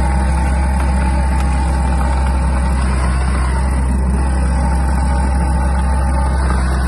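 Chain trencher's engine running at a steady speed as the trenching chain digs, a continuous deep drone with a faint steady whine above it.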